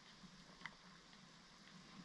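Near silence: room tone, with a faint click about two-thirds of a second in.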